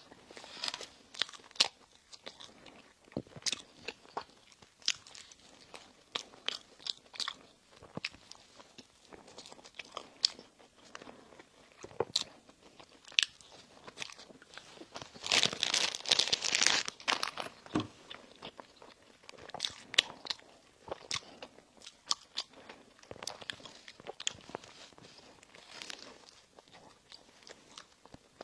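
Close-miked eating of bakery bread and pastries: biting, crunching and chewing, with many sharp mouth clicks and a louder, denser stretch of noise about halfway through.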